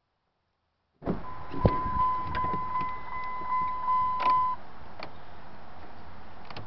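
Pickup truck cab's electronic warning chime sounding a steady high tone with a quick pulse, mixed with several clicks and knocks, for about three seconds. It stops abruptly, leaving a steady hum.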